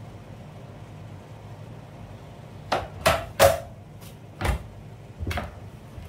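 About six sharp, irregular knocks and taps on a vinyl-tiled floor as loose deco tiles and a utility knife are set down and footsteps move off across it, starting about halfway through.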